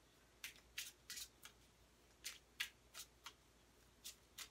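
Tarot cards being shuffled by hand: about a dozen short, faint brushing strokes of cards sliding off the deck, coming in small irregular clusters.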